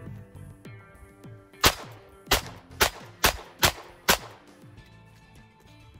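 Six shots from a Smith & Wesson Model 67 revolver firing .38 Special rounds, in quick succession about half a second apart, each followed by a short ring.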